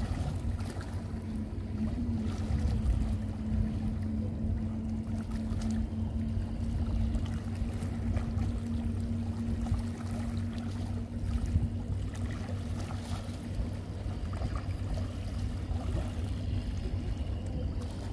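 Seaside wind rumbling on the microphone over lapping harbour water. A steady low hum runs through most of it and fades out about two-thirds of the way in.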